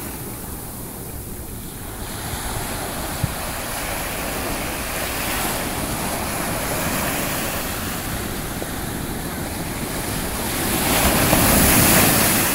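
Ocean surf washing in steadily, swelling near the end as a big wave breaks close by.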